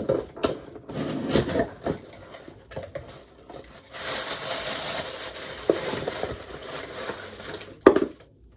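Packaging being handled as a box is unpacked: scattered knocks and taps, then about four seconds of rustling, ending in a sharp knock.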